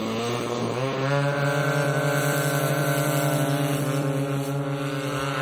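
Twin engines of a radio-controlled scale B-25 Mitchell model bomber throttling up for takeoff. The pitch climbs about a second in, then holds as a steady, throbbing engine note.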